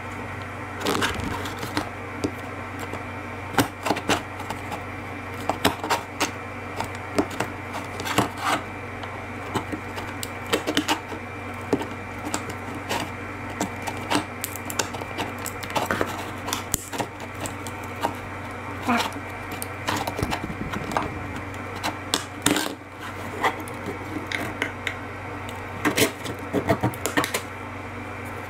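Irregular clicks, taps and scrapes of a screwdriver prying a siliconed-in solar panel out of a plastic solar post-light cap, the silicone holding it tight, over a steady low hum.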